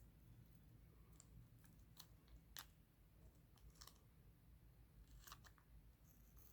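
Faint snips of scissors cutting through taped paper, a few irregular clicks spread a second or so apart.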